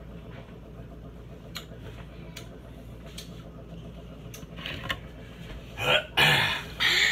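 A person's loud huffs and yelping cries near the end, a reaction to the burn of a hot cherry pepper, after a few faint clicks over a low steady hum.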